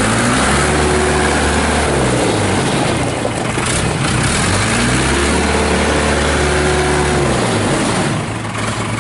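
Case 580 Super E backhoe's Cummins 4B four-cylinder diesel engine running, revved up and held twice, dropping back toward idle in between and again near the end.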